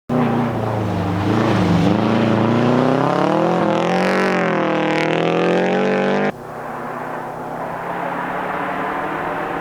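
Subaru WRX rally car's flat-four engine revving hard, its pitch climbing and dropping as it works through the gears. About six seconds in it cuts off suddenly to a quieter, steadier engine note.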